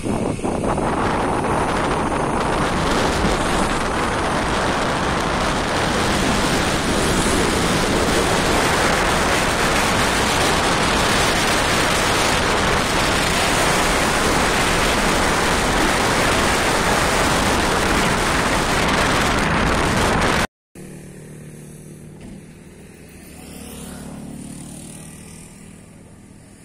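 Wind buffeting the microphone: a loud, even rush that cuts off suddenly about twenty seconds in. A much quieter outdoor background follows.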